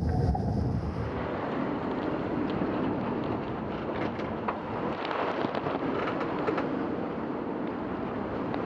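Steady rushing of strong wind and water around a sailboat under way in near-gale winds, with a few faint crackles.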